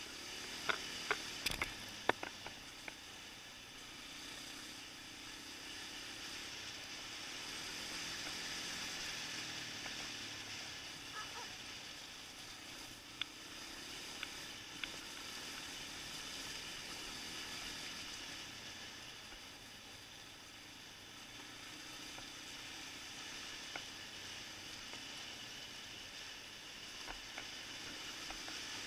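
Onboard noise of a Suzuki LT-Z400 quad riding a gravel dirt track: a steady hiss of wind and tyres on loose gravel, with the engine buried beneath it. A few sharp clicks and knocks come in the first couple of seconds and again about halfway through.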